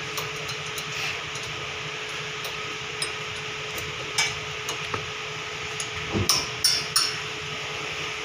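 Sharp metallic clinks and knocks of hand tools on a car's front disc brake caliper as it is worked off during a brake pad change. The knocks come singly at first, with a louder cluster about six to seven seconds in, over a steady shop hum.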